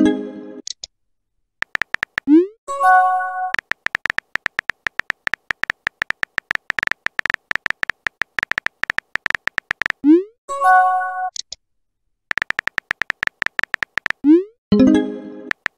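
Phone keyboard typing sound effects: rapid runs of short tonal clicks. Three times, a message is sent with a quick rising pop followed by a short chiming notification tone, at about 2.5 s, 10.5 s and near the end.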